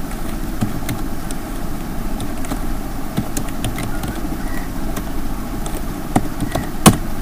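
Computer keyboard keys clicking irregularly as an email address is typed, with a few sharper clicks, the loudest near the end, over a steady low rumble and hum.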